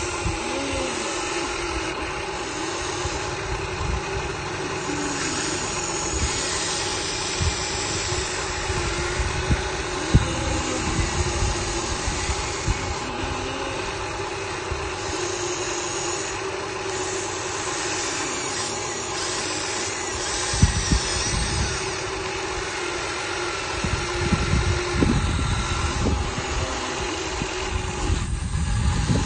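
Radio-controlled excavator and dump truck motors running with a steady hum, with occasional knocks and clatters, thicker near the end.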